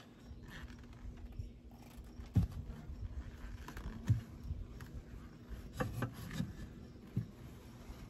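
Honeybees humming faintly and steadily around an opened hive, with scattered soft knocks and rustles from a frame and hive parts being handled.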